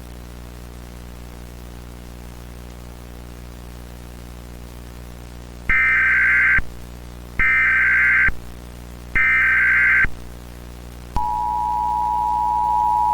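Steady low hum of VHS-style background noise, then three short bursts of Emergency Alert System SAME header data tones, each about a second long. About eleven seconds in, the steady two-tone EAS attention signal begins and holds.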